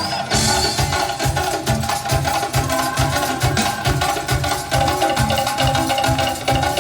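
Music with drums and hand percussion keeping a steady, quick beat under sustained melodic tones.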